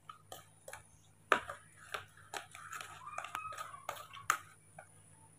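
Metal spoon clicking and scraping against a small plastic bowl as rice porridge is stirred and mashed: irregular light taps, two or three a second, with a louder knock about a second in and another near the end.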